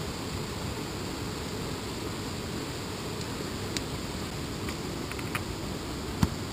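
Steady rushing noise of rain falling, with a few faint clicks and crackles from a small kindling fire of wood shavings and twigs as it is fed and catches, and one sharper knock near the end.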